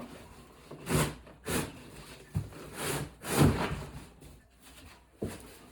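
A large cardboard shipping box being handled and shifted, giving a series of short rubbing and scraping noises.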